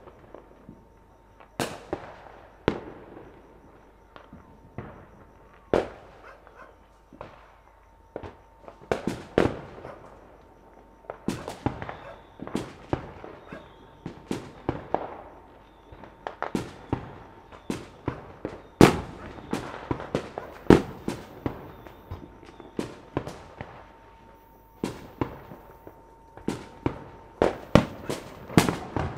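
Fireworks and firecrackers going off at varying distances: irregular sharp bangs, each trailing off in a short echo. They are scattered at first and come thicker from about a third of the way in, with the loudest blasts about two-thirds through.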